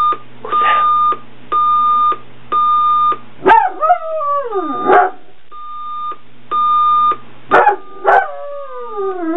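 An alarm clock beeps, a steady high tone repeating about once a second, while a dog howls along in long cries that fall in pitch, with a few sharp barks. The beeping breaks off twice while the dog howls.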